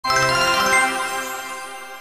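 Short bright intro jingle: a chime-like chord that sounds at once and rings out, fading away over the next couple of seconds.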